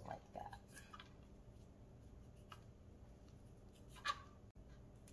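Faint rustling and crackling of fresh rosemary leaves being stripped off a woody stem by hand onto a plastic cutting board, with a sharper tick about four seconds in.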